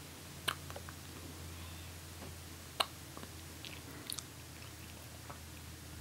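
Newborn baby with the hiccups: a few faint, sharp clicks from the baby's mouth and throat, the loudest a little under three seconds in. A low steady hum runs underneath.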